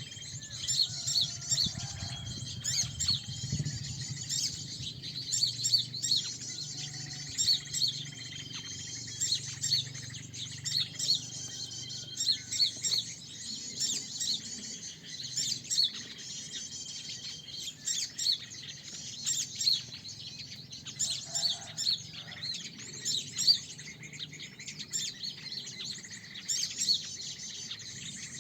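Many small songbirds chirping and trilling at once in a dense, continuous chorus of fast high notes, with several held whistled notes of about a second each among them.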